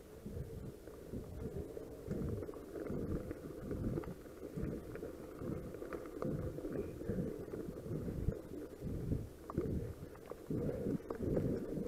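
Mountain bike riding over rough grass and gravel, heard as a low rumble with irregular thumps from bumps in the track and wind buffeting on the camera microphone.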